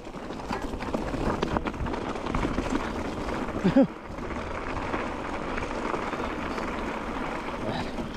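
Steady wind noise on the microphone with scuffing footsteps on a hiking trail. A short, loud pitched sound rises and falls about four seconds in.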